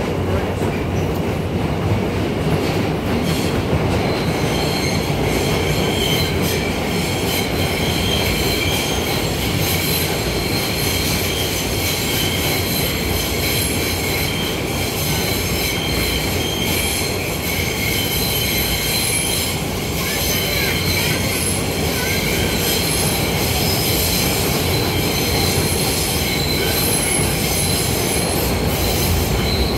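Inside an R160 subway car running between stations: the steady rumble of wheels on rail, with a high-pitched squeal of the wheels held over it.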